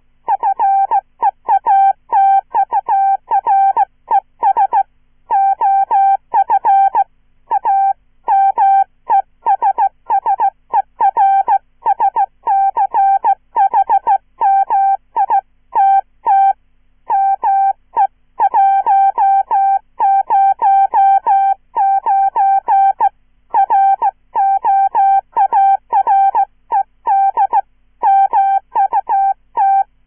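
Hand-sent Morse code at about 15 words per minute from a straight key, heard as a synthesized "chirpy" beep near 800 Hz: irregular strings of short dits and longer dahs in letter and word groups, each element opening with a brief chirp.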